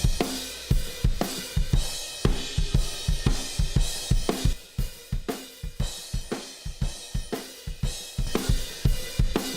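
Live acoustic drum kit, recorded with eleven microphones, playing a steady groove of kick, snare, hi-hat and cymbals. It is heavily compressed with the Arousor compressor, which brings out the room reflections and makes the kit sound fuller, punchier and glued together.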